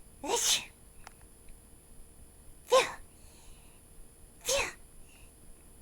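Three sneezes in a high-pitched, put-on cartoon-creature voice, about two seconds apart; the middle one is the sharpest and loudest.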